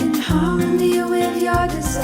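Background music: an upbeat instrumental track with a plucked bass line and melody notes.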